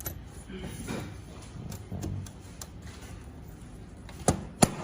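Two sharp clicks about a third of a second apart near the end, from the MDVR kit's antenna leads and connectors being handled, over a faint low murmur.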